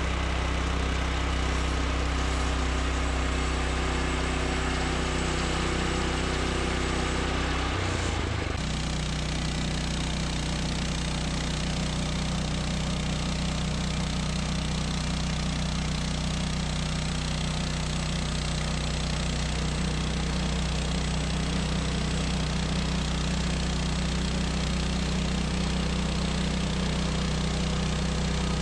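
Woodland Mills portable bandsaw sawmill running under engine power, sawing cedar with a hardwood band blade. The engine holds a steady note, which shifts abruptly to a different steady pitch about eight seconds in.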